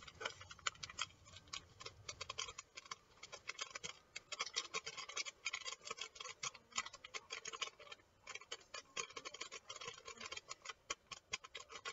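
Faint, fast, irregular crinkling and ticking of instant-yeast packets being handled and tapped empty over a stainless steel bowl.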